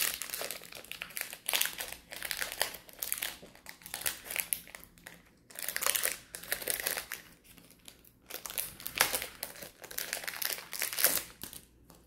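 Foil wrapper of a Pokémon TCG booster pack crinkling in repeated bursts as hands work at tearing open a stubborn pack.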